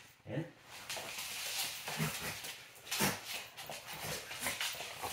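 A dog sliding on her back across a laminate floor, a brushing hiss lasting about a second and a half, followed by dogs' claws clicking and scrabbling on the laminate with a few brief low dog noises.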